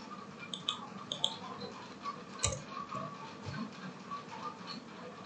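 Scattered soft clicks of a computer keyboard and mouse, with a firmer tap about two and a half seconds in and another a second later.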